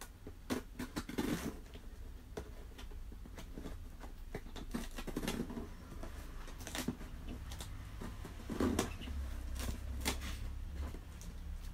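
Scissors snipping and scraping while cutting open a cardboard box: irregular clicks and short rustles over a steady low hum.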